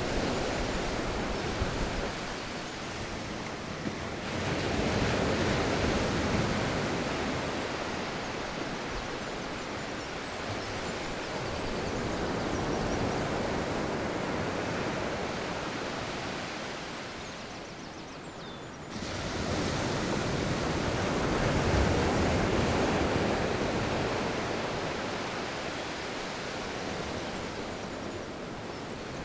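Sea waves breaking and washing up a beach, with wind blowing across the microphone, swelling and easing every several seconds. The sound jumps up abruptly about four seconds in and again past the midpoint.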